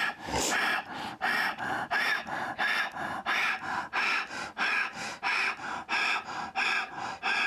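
Rapid, forceful rhythmic breathing through the mouth: short sharp breaths at an even pace of about three a second, kept up throughout, as in a paced breathing exercise.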